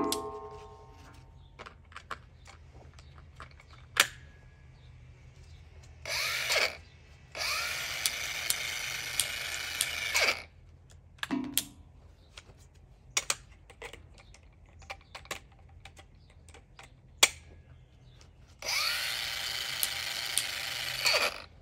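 Bosch GWS 18V-15 PSC cordless angle grinder switched on three times in short runs, each spinning up with a rising whine before cutting off. Between runs come clicks and knocks as X-lock discs are set down and locked on, opening with a ringing metal clank.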